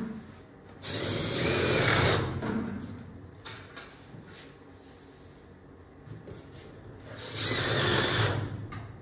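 Cordless drill driving screws into galvanized round sheet-metal ductwork at a duct joint. It runs twice in short bursts of a second or two, once about a second in and again near the end, with faint handling clicks between.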